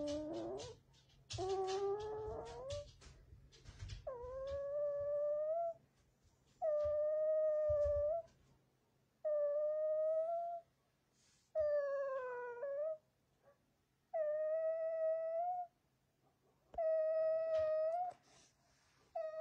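A gravely ill puppy crying over and over: about eight long, high, steady whines, each lasting about a second and a half and repeating every two to three seconds, the first couple rougher and lower. The cries are the sound of a puppy in distress from an illness the vets could not cure.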